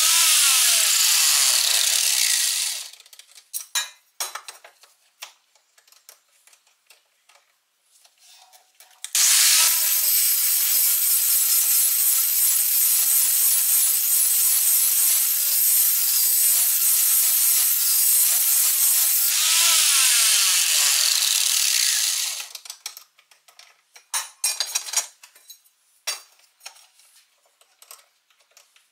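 Angle grinder grinding the cutting edge of a steel lawn mower blade clamped in a sharpening jig, in two long runs. The first dies away about three seconds in; the second starts about nine seconds in and runs down between about 20 and 22 seconds in. In between and afterwards there are scattered clicks and knocks as the blade is handled in the jig.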